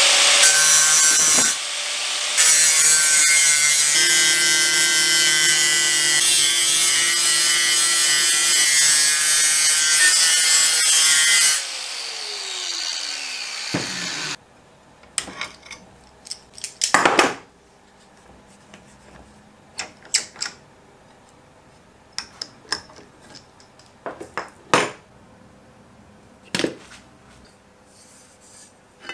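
Angle grinder with an abrasive disc grinding the steel tang of a rusty cleaver, with one short lift-off near the start. About 12 seconds in, the grinder is switched off and its motor winds down in a falling whine. After that come scattered clicks and knocks as tools and the blade are handled.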